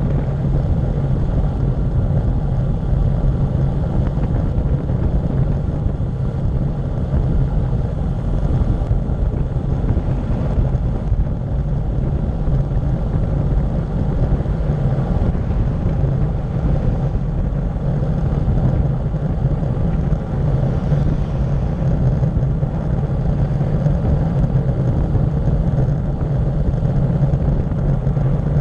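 Steady wind rush buffeting the microphone of a bicycle-mounted camera on a fast downhill road descent, with tyre rumble on asphalt under it: a continuous low roar without pauses.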